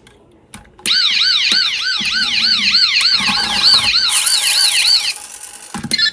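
Electronic police siren sound effect of a toy GAZ-3302 police van, switching on with a click a little under a second in and warbling up and down about twice a second, then cutting off about five seconds in.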